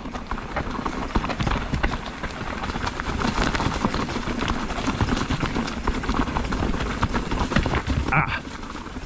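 Mountain bike rattling and clattering over a rocky trail on a descent: a dense, steady run of small knocks from the tyres and frame over loose rock.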